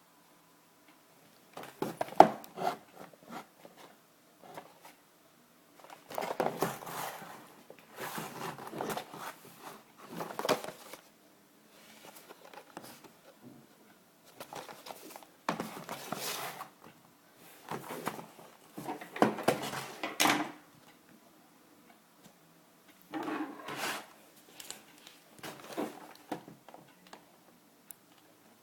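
Beyblade toy packaging being handled and opened: plastic and cardboard rustling and clattering in irregular bursts a second or two long, with short quiet gaps between.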